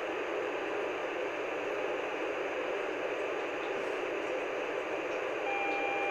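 Yaesu FTM-400DR mobile transceiver's speaker putting out a steady rush of static hiss, narrowed to the voice band. About five seconds in, two steady tones join it. This is the unexplained noise the radio makes about every 15 seconds on UHF, on both receive and transmit, which the owner takes for a fault in the radio itself.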